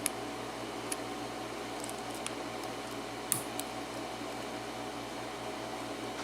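A few light metallic clicks of a lock pick and tension wrench working the pins of a Tesa five-pin padlock, the sharpest about three and a half seconds in, over a steady hum.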